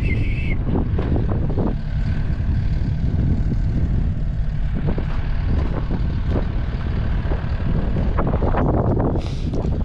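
Strong wind buffeting the microphone: a loud, steady low rumble with gusts.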